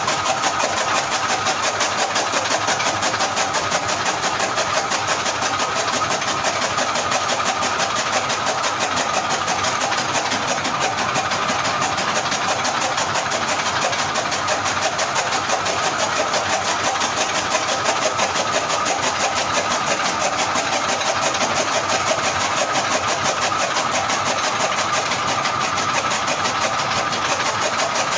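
Electric chaff cutter running steadily while green fodder is fed through and chopped by its flywheel blades, a loud machine noise with a fast, even rhythm.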